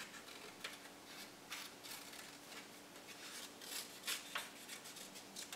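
Scissors cutting through construction paper in a string of uneven snips, a few of them louder.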